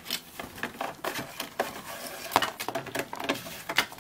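Plastic parts bags and a paper instruction sheet rustling and crinkling as a plastic model car kit's contents are handled, with irregular light clicks and taps.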